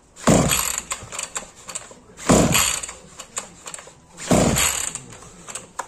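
Recoil pull-starter of a Kawasaki TJ53 two-stroke string trimmer, pulled three times about two seconds apart. Each pull gives a whirring rattle that falls in pitch as it slows, and the engine does not catch between pulls, the sign of a trimmer that won't start.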